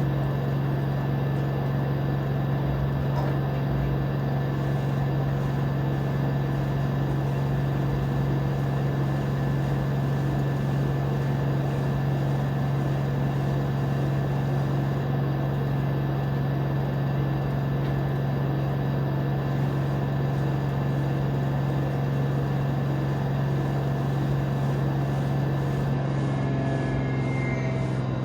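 LG 13 kg front-load washer-dryer spinning at top speed, its direct-drive motor giving a steady low hum with a whir over it. This is the ordinary motor noise of the spin, not a fault. Near the end, faint whining tones begin to fall in pitch.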